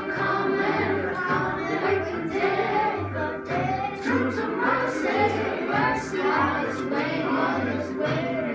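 A group of children singing a song together, with a steady low beat about twice a second behind their voices.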